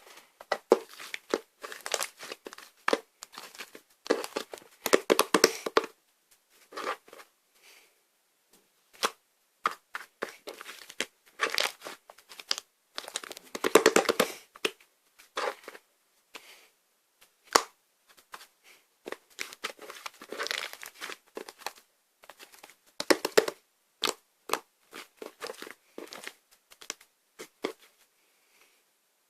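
Slime being squeezed and worked by hand, making irregular clicking and crackling pops in clusters with short pauses between them.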